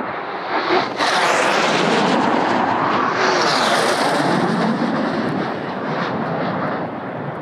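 Low-flying fast jet passing close by, its engine roar building, jumping suddenly louder about a second in, and sweeping in pitch as it goes past, then easing off as it flies away.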